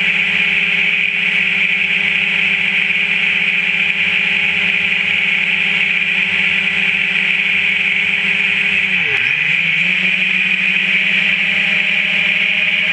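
A racing miniquad's four Racerstar 2205 brushless motors and propellers whine at a steady pitch. About nine seconds in, the pitch drops sharply as the throttle is cut, then climbs straight back up.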